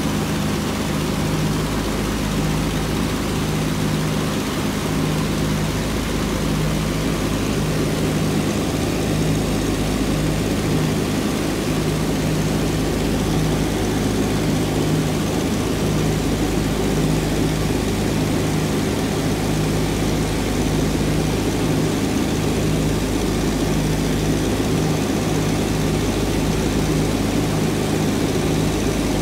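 North American B-25 Mitchell's twin Wright R-2600 radial engines and propellers in cruise flight, a loud steady drone heard from inside the cabin.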